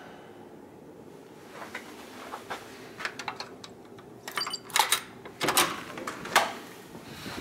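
A key card slid into a hotel room's electronic door lock, then the lock and lever handle clicking and the latch knocking as the door is opened. The clicks come in a quick run a little past four seconds in, and the loudest knocks are spread over the next two seconds.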